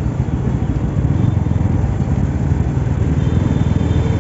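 Motorcycle engine running steadily at low speed in traffic, picked up from the rider's helmet, the sound mostly a deep, even rumble.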